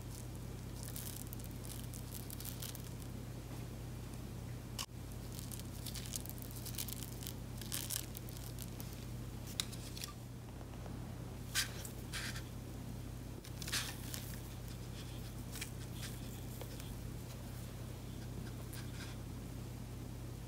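Small foam beads spooned from a plastic spoon onto slime in a clear plastic cup, making scattered short crackles and rustles over a steady low hum.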